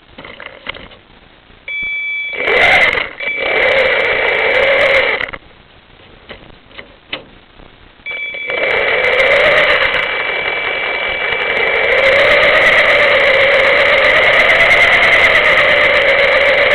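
Small vehicle's motor running, a steady high whine over a rough drone whose pitch wavers up and down. It runs for a few seconds about two seconds in, stops, and starts again at about eight seconds and keeps going.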